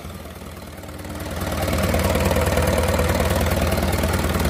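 Mitsubishi PS120 marine diesel engine running on the test stand shortly after starting, with a fast, even run of firing pulses. It grows louder from about a second in and then runs steadily.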